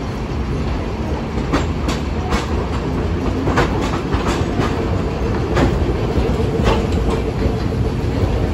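Hiroden 800-series tram no. 808 rolling in along the platform, its steel wheels clacking irregularly over the points and rail joints above a steady low rumble of the running gear.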